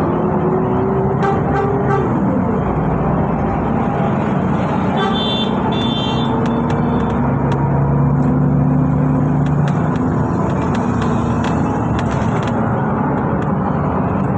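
City bus running, with steady engine and road noise heard from inside the cabin. An engine whine rises in pitch over the first two seconds, then drops. A short double high beep comes about five seconds in.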